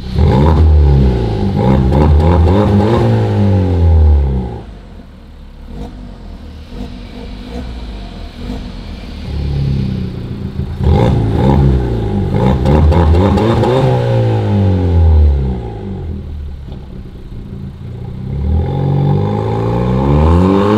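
Volkswagen Golf Mk7 with a tuned exhaust fitted with a vacuum-operated valve, revved hard from idle in two long bursts, its pitch climbing and falling and settling back to idle between them. Near the end it revs up again as the car pulls away.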